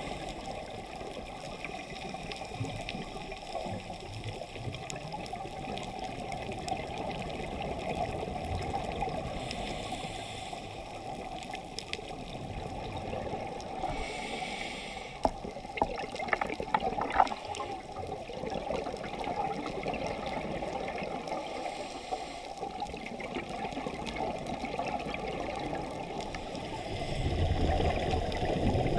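Underwater ambience recorded on a diving camera: a steady, muffled rush of water, with a few sharp clicks around the middle and a louder, deeper rush near the end.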